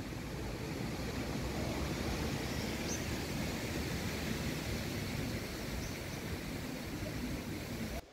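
Steady outdoor background noise, a low rumble with a hiss over it, with no distinct event standing out; it cuts off suddenly near the end.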